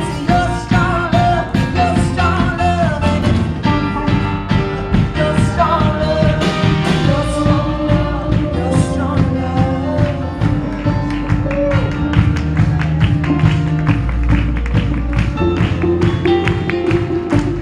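Upbeat live Christian praise music from a full band, with a steady driving beat and sung melody lines.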